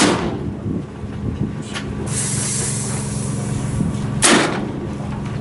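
Big bore air rifle shots: one sharp crack with a short fading tail right at the start and another about four seconds in. Between them a brief hiss of air, over a steady low hum.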